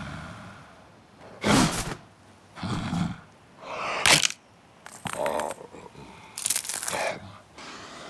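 A cartoon crocodile making short vocal sounds, about six separate bursts roughly a second apart. Background music fades out at the start.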